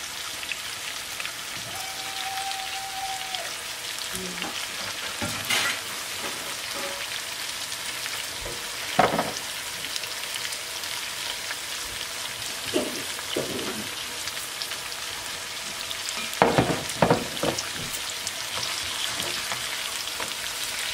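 Tuna steaks with onions and garlic sizzling steadily in oil in a frying pan, with a few scattered knocks and several more together about two-thirds of the way in.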